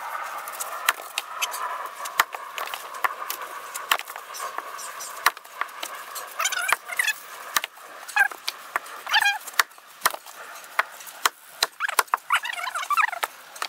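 Splitting axe striking oak rounds on a chopping block: irregular sharp knocks and cracks as the logs split, with split pieces clattering onto the pile.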